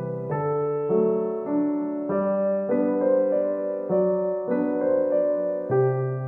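Background solo piano music, a new chord sounding a little under twice a second.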